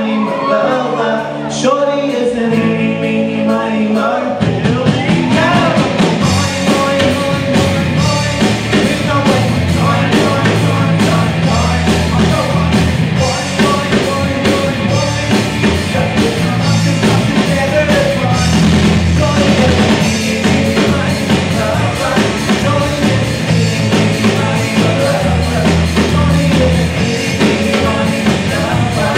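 Live rock band with a singer, sung vocals over the band. About four seconds in, the drums and bass come in and the full band plays on.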